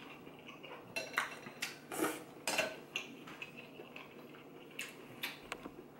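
Chopsticks and a spoon knocking and clinking against a ceramic noodle bowl: a scattering of short, irregular clicks, more of them in the first half.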